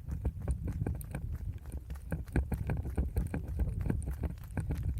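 A runner's footsteps: quick, regular footfalls over a steady low rumble.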